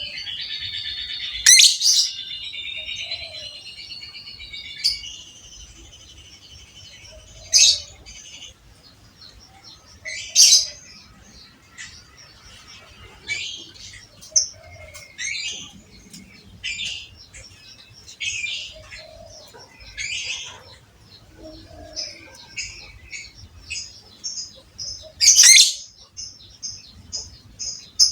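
Lovebird calling: a dense, high chattering trill for the first few seconds, then a string of separate sharp chirps and calls, broken now and then by loud shrill shrieks, the loudest near the end.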